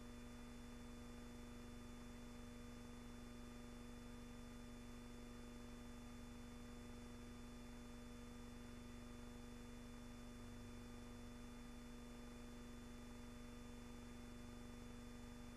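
Near silence: a faint, steady hum with hiss, and no gunfire or explosions.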